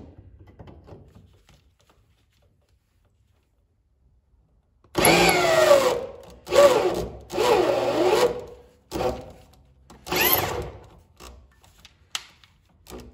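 Air drill driving an M10×1.5 tap into a drilled-out bolt hole in a steel car frame, run in about half a dozen short bursts starting about five seconds in. Its whine sags in pitch as the tap bites and loads the motor, then lets off between tries: the tap is hard to drive and the drill slips.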